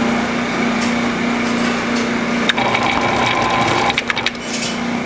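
Electric doughnut-filling (injector) machine running with a steady motor hum. Past the middle a higher whine joins for about a second, and a few sharp clicks and knocks come near the end as the doughnuts are handled on the nozzles.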